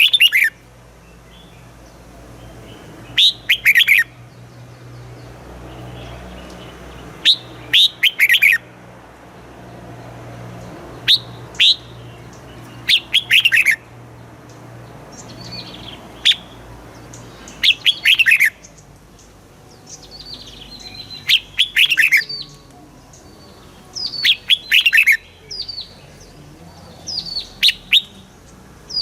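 Red-whiskered bulbul singing: short, loud phrases of a few quick descending whistled notes, repeated every two to four seconds.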